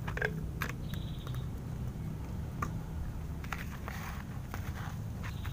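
Fire of kerosene-soaked sand and ash burning with a steady low rumble and scattered crackles and clicks. In the second half a stick scrapes and stirs through the burning sand.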